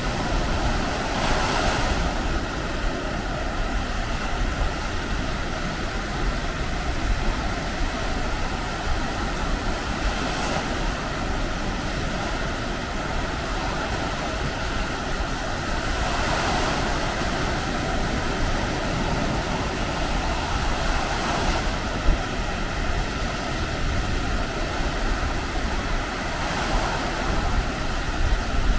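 Baltic Sea surf washing onto a sandy beach, with waves swelling and breaking every few seconds. Wind rumbles on the microphone throughout.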